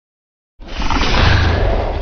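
Imagined Cryolophosaurus call sound effect: a loud, deep animal-like growl that starts abruptly about half a second in after silence and carries on.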